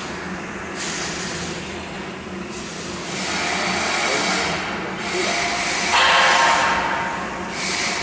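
Planetary concrete mixer running: a steady hum from the motor and gearbox under a hissing, scraping noise that swells and fades every second or two as the rotating blades sweep the trough.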